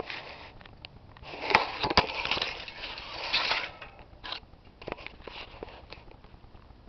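Parakeets chattering: a busy run of scratchy calls and clicks, loudest from about one to three and a half seconds in, then thinner.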